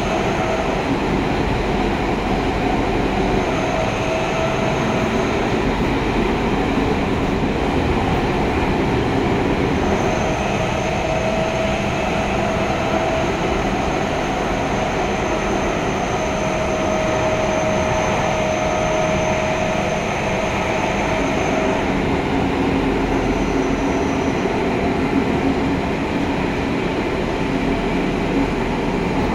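Tokyo Metro Tozai Line subway train running through a tunnel, heard from inside the passenger car: a steady rumble of wheels on rail, with a thin high whine that comes and goes several times, longest in the middle.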